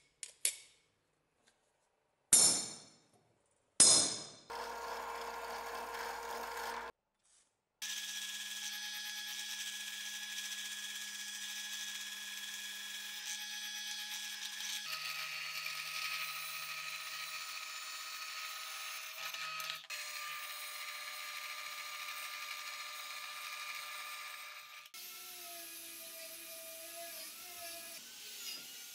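A few sharp, ringing metal clinks, then a drill press running and boring holes in a steel bar for most of the time, its pitch changing about halfway through. Near the end an angle grinder runs, quieter and wavering.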